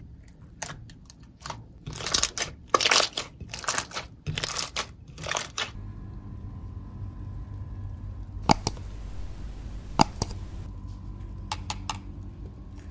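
Hands squishing and pressing glittery slime in a glass bowl, making a run of irregular crunchy, crackly squelches. About six seconds in these stop, leaving a faint steady hum with a few sharp clicks.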